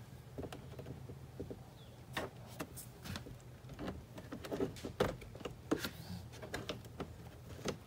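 Faint, scattered clicks, taps and rubbing of hands working plastic trim and wiring inside a car door, over a low steady hum.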